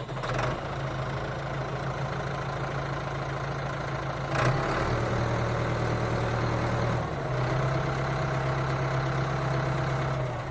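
Motor of a homemade model construction vehicle running steadily with an even hum. Its pitch shifts slightly about four seconds in, with a brief click, and again about seven seconds in.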